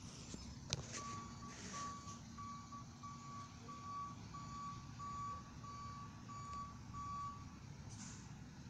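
Garbage truck's reversing alarm beeping at one steady pitch, about one and a half beeps a second, stopping near the end, over the faint low rumble of its engine.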